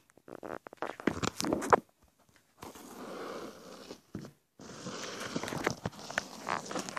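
Close handling noise: a quick run of clicks and knocks for about two seconds, then two stretches of rough rubbing and scraping with scattered clicks, as fingers handle a plastic toy turtle and the phone close to the microphone.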